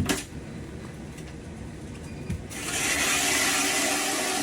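Power ice auger drilling a hole in the ice: the motor runs steadily, and from about two and a half seconds in a much louder, rougher noise takes over as the blades cut through.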